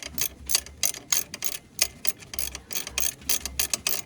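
Small hand ratchet clicking rapidly as its pawl ratchets on the back-swing, turning out a bolt: a quick, uneven run of sharp clicks, several a second.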